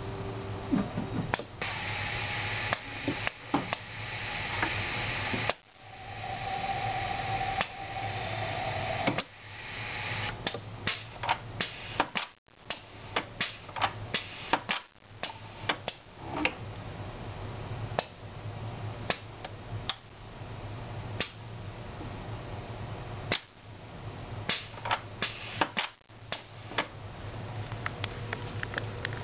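Pneumatic valves and cylinders of an automated fly-sorting machine clicking sharply and often, with stretches of air hissing through roughly the first twelve seconds, over a steady low hum.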